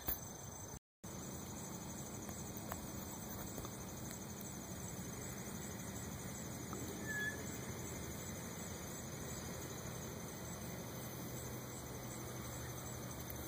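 Faint outdoor background noise: a steady hiss with a faint high-pitched chirring, one brief short chirp about seven seconds in, and a moment of complete dropout about a second in.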